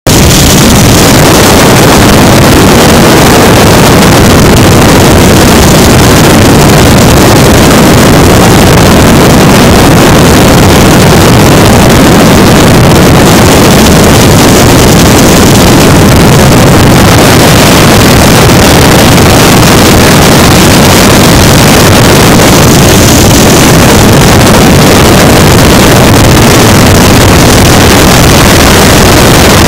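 Helicopter in flight heard from inside the cabin: a loud, steady din of engine and rotor that does not change.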